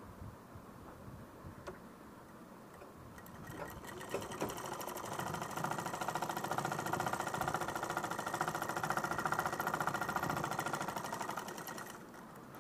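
Straight-stitch sewing machine sewing a test seam through cloth after a thread-skipping repair. After a few light clicks it starts about three seconds in, speeds up to a fast, even run, then slows and stops near the end.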